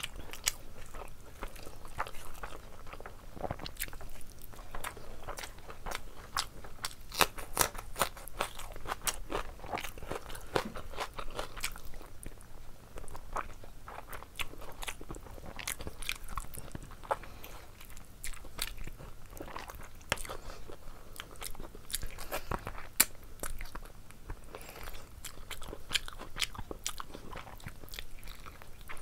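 A person biting and chewing curried meat eaten by hand: a dense, irregular run of sharp, wet mouth clicks.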